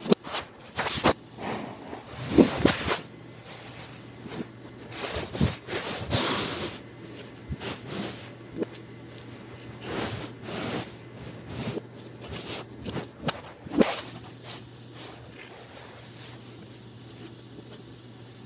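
Hands pressing and rubbing play dough on a hard tabletop: irregular swishing with a few sharp knocks, which stop about fourteen seconds in, leaving a faint steady hum.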